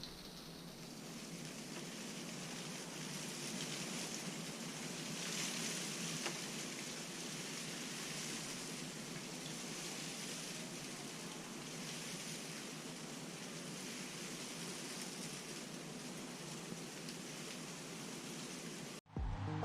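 A steady, even hiss of falling rain, with one faint click about six seconds in.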